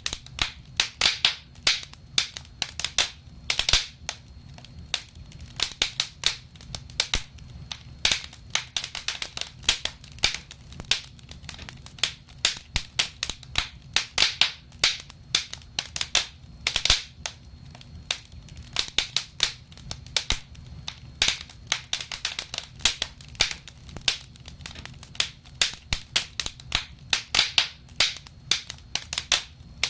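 Wood fire crackling: irregular sharp pops and snaps, several a second in clusters, over a low steady rumble of the flames.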